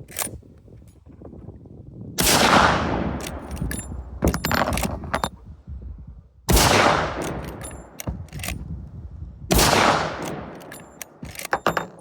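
Three shots from a Winchester 1886 lever-action rifle in .45-90, about four and three seconds apart, each ringing out and dying away slowly. Between shots come metallic clicks as the lever action is worked. Every round goes off, with no misfire, on the rifle's reworked firing pin.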